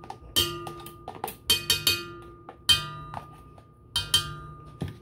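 Knocks against a stainless steel mixer bowl as softened butter is knocked out of a container into it. There are about six sharp strikes at uneven intervals, and the bowl rings with a metallic tone after each one.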